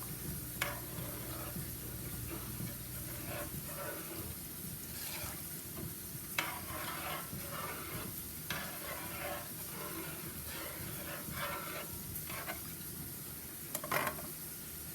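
A spoon stirring and scraping in a pot of rice, irregular strokes over a steady sizzle from the pot.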